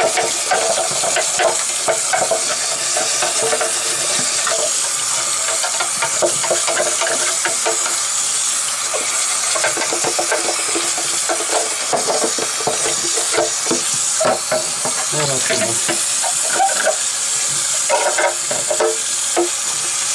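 Tap water running into a sink while a bristle brush scrubs the plastic housing of an AquaClear hang-on-back aquarium filter. The water makes a steady hiss, with irregular scrapes and small knocks of the brush and housing on top.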